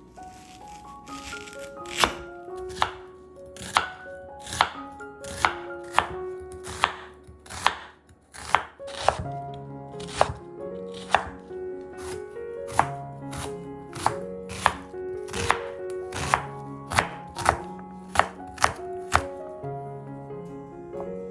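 A kitchen knife chopping down onto a cutting board in slow, even strokes, about one cut a second, starting about two seconds in and stopping near the end, over soft piano background music.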